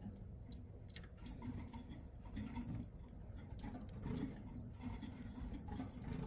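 Double-collared seedeater (coleiro) nestling begging while the adult male feeds it: a quick, uneven run of thin, high squeaks, each falling in pitch, several a second.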